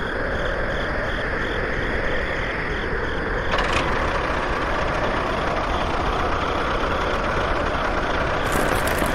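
Small motor of a DIY miniature machine running steadily, with a brief click and a change in its sound about three and a half seconds in.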